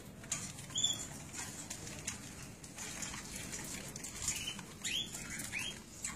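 Cockatiels giving short chirps, about four in all: one near the start and three in quick succession in the last two seconds, over scattered light clicks.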